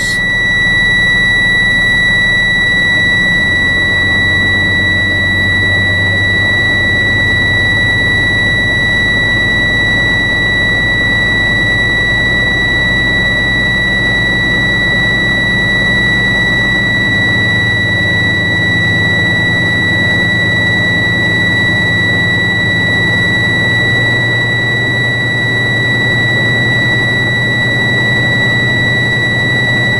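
Truck's low-air warning buzzer sounding continuously as one steady high tone, the loudest sound, over the tractor's diesel engine held at fast idle. The engine rises a few seconds in to around 1200 rpm to build brake air pressure, and the buzzer means the air pressure is still below the warning level.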